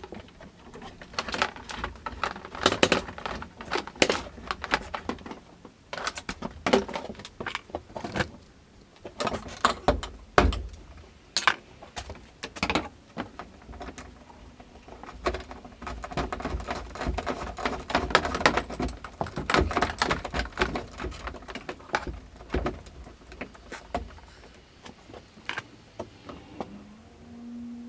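Irregular clicks, taps and light clattering of hands working with tools and wiring parts, with no steady rhythm.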